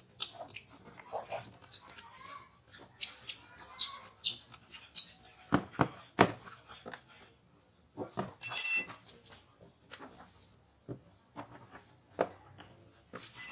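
Hands and tools working on a Yamaha Ego scooter's plastic body parts and screws: scattered clicks, scrapes and knocks, with two sharp knocks about six seconds in and a loud high squeak a couple of seconds later.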